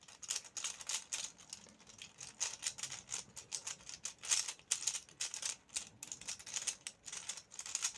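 Plastic 3x3 puzzle cube being turned quickly in a speedsolve, with a dense, irregular run of clicking and clacking from its layers. The cube is loose and turns badly.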